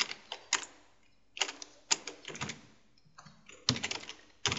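Computer keyboard keys clicking as code is typed, in three short runs of keystrokes with brief pauses between.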